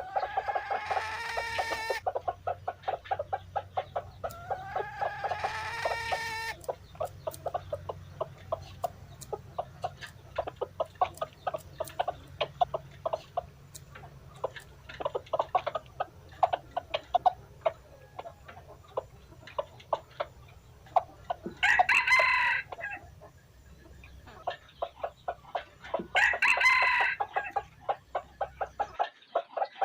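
Dong Tao chickens: a rooster crows twice in the first six seconds, each crow lasting about two seconds. A steady run of rapid clucking carries on throughout, and two more loud crowing calls come about three-quarters of the way through.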